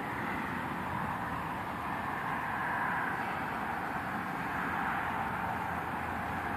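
Steady background noise: an even, unchanging hum with no distinct events.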